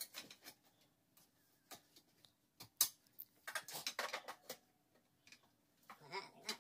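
Clicks, taps and light rattles of a baby swing's tube frame and plastic fittings being handled and pushed together during assembly. One sharp knock a little under three seconds in is the loudest, followed by a quick run of clicks.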